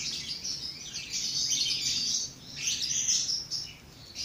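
Birds chirping in quick, high-pitched bouts, pausing briefly about two seconds in and again just before the end.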